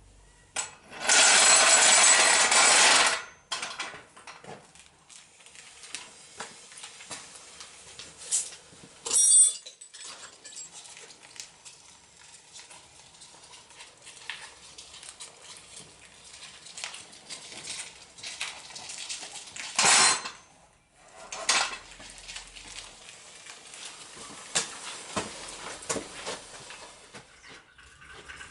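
Metal tools and parts clinking and knocking during workshop work on a motorcycle engine, with a loud two-second rush of noise about a second in and shorter loud bursts near the middle and later on.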